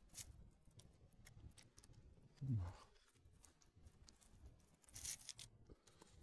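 Cats chewing and licking food, faint crunching and small wet clicks. About two and a half seconds in there is one short low sound falling in pitch.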